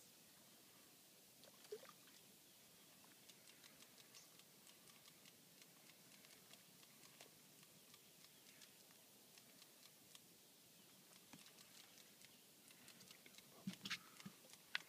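Near silence, with faint irregular ticks throughout and a few louder clicks near the end.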